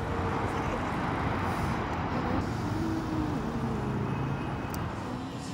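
A car driving past on a city street: tyre and engine noise swells, then fades away near the end.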